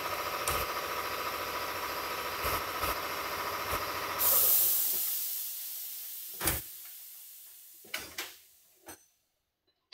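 Shop air compressor running steadily with a fast pulse, then cutting off about four seconds in with a loud hiss of released air that fades away over several seconds; a few light knocks follow.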